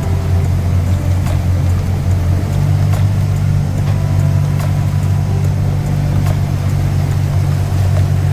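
Carver 41 motor yacht's inboard engines running steadily under way, a loud, even low hum.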